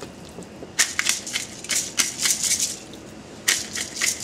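Hand-held pepper mill grinding peppercorns with quick twists: a dry, crunching, ratcheting rattle. It comes in two runs, one starting about a second in and lasting nearly two seconds, the other starting again near the end after a short pause.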